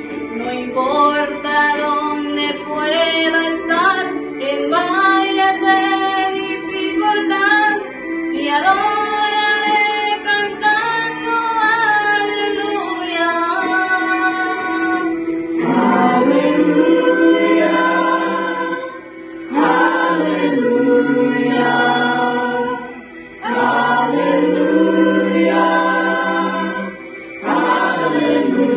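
A cappella choir of young mixed voices singing, with a girl's solo voice out front. About halfway through, lower, fuller voices join in long held phrases broken by short breaths.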